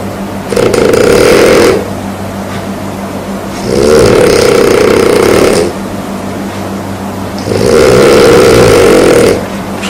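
A person snoring in sleep: three rattling snores of one to two seconds each, coming every three and a half seconds or so in a steady breathing rhythm, with a steady low hum between them.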